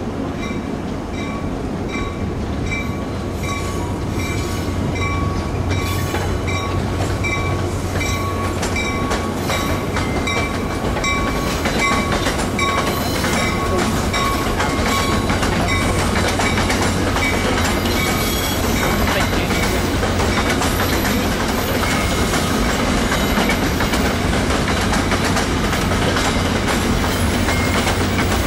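NJ Transit commuter train pulling in: a locomotive bell ringing at about two strokes a second over a steady low hum, dying away about halfway through, then the rumble and wheel clatter of the passenger cars rolling past.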